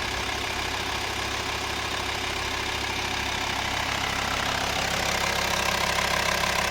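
VW T5 2.5 TDI (BPC) five-cylinder diesel engine idling steadily, getting slightly louder about two thirds of the way in; it is filmed as an engine noise the owner counts as a problem.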